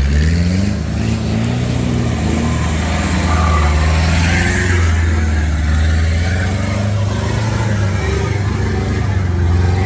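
Engine of a Troller 4x4 working under load up a muddy trail, its pitch rising in the first second or so as it revs, then running steadily. A brief rush of noise comes about four seconds in as it passes close.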